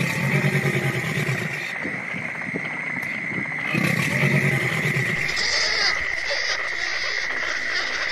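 Two low calls of a crocodilian, each about a second and a half long and about three and a half seconds apart, over a steady high-pitched drone. Fainter high chirping starts about five seconds in.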